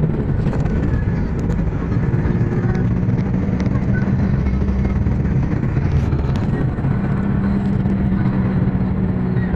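Moving bus's engine and road noise heard from inside the cabin: a steady low drone with a few faint clicks and rattles.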